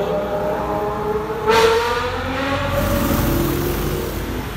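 Ferrari 812 Superfast's naturally aspirated V12 revving hard as it pulls away, with a sudden loud burst about a second and a half in and the engine note falling after it.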